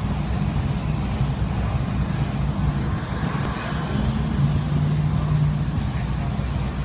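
Modified pulling tractor's multiple supercharged V8 engines running together at a steady, loud low rumble, swelling briefly a little past halfway.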